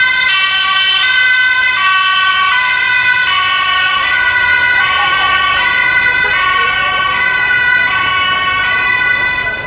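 Two-tone emergency-vehicle siren, most likely a Dutch police car's, alternating steadily between a high and a low note, each held for about three-quarters of a second. It drops away near the end.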